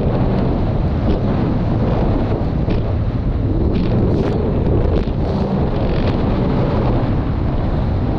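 Heavy wind buffeting the microphone of a fast-moving watercraft, mixed with the rush of water and short spray slaps as it crosses boat wakes.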